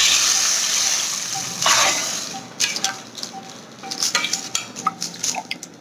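Hot oil with fried cumin seeds, a tadka, is poured from a steel ladle into spiced yogurt and sizzles loudly, fading over about two seconds with a second short burst. After that the steel ladle clinks against the steel pot as the yogurt is stirred.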